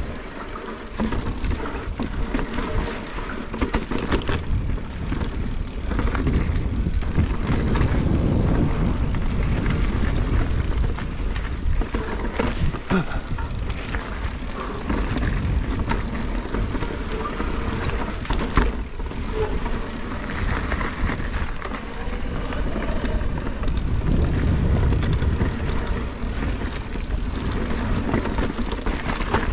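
Mountain bike riding down a dirt trail: wind rumbling on the microphone over the rolling of the tyres, with occasional sharp knocks and rattles from the bike over rough ground.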